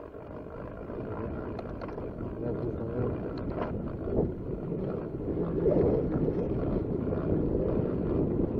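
Wind buffeting the action camera's microphone as a rough, rumbling noise that grows steadily louder, with a few faint clicks.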